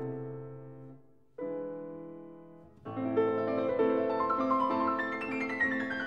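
Background piano music: slow notes that ring and fade, a brief pause about a second in, then a busier run of notes from about three seconds in that steps downward toward the end.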